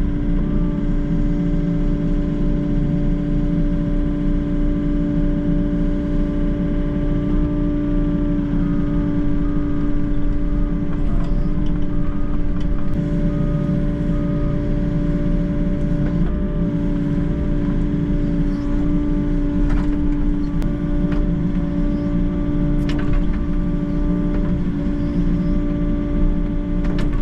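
Volvo excavator's diesel engine running steadily, heard from inside the cab as a constant hum with a few higher tones coming and going and a few brief clicks as the arm and bucket work.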